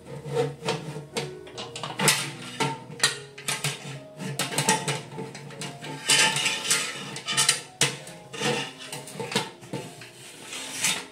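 Irregular metal clanks and clinks of a home canning autoclave's stainless-steel lid and clamping crossbar being fitted and screwed down, over background music.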